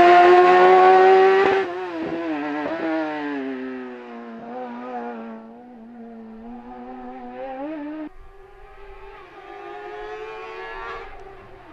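Suzuki GSX-R1000 inline-four motorcycle engine in a Fiat X1/9 race car, revving high and loud close by at first. It then cuts abruptly to a farther-off sound, with the revs rising and falling and brief dips as the driver lifts and shifts through the slalom chicanes.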